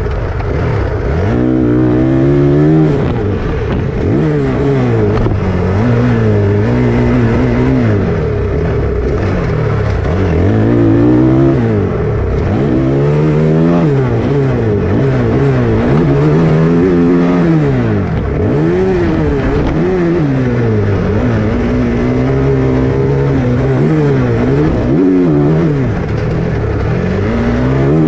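Motocross dirt bike engine revving hard, its pitch climbing and falling again and again as the throttle is opened and closed.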